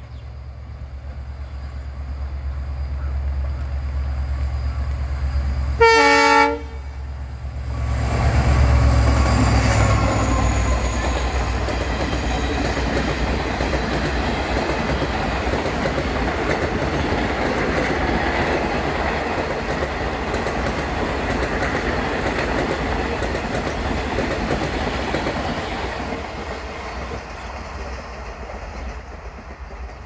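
WDP4D diesel locomotive approaching at speed, its engine rumble growing louder, with one short blast of its horn a few seconds in. The locomotive then runs past and a long rake of coaches rolls by with steady wheel-on-rail noise, fading near the end.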